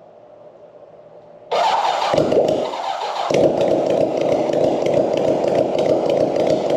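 The 1983 Kawasaki GPZ1100's air-cooled inline four-cylinder engine fires up suddenly about a second and a half in and keeps running. It is a second start of this freshly revived, once-seized engine.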